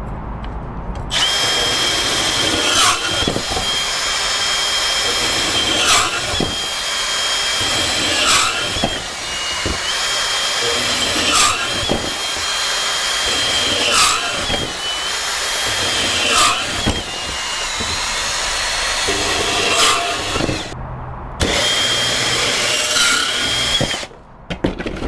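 Milwaukee M18 FUEL compact band saw, with its brushless motor, cutting through 1-inch EMT steel conduit. A steady high whine from the motor and blade, with a short recurring blip about every two and a half seconds. It cuts out for a moment about three-quarters of the way through, runs again, and stops near the end as the cut finishes.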